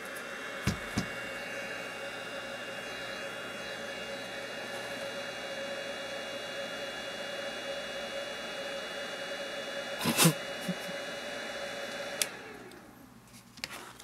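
Small vacuum-cleaner-type motor whirring with a steady whine, spinning up at the start and winding down with falling pitch near the end. Two light clicks about a second in and a louder knock about ten seconds in.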